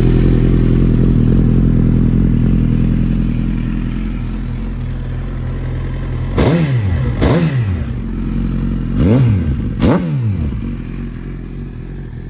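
Suzuki GSX-R1000's inline-four engine idling through an aftermarket Scorpion exhaust, then blipped four times, in two quick pairs a couple of seconds apart; each blip's pitch rises sharply and falls back to idle.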